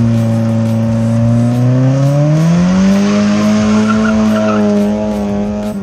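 Car engine held at high revs through a burnout, its pitch climbing about two seconds in and holding high, with the tyres squealing and skidding on the pavement.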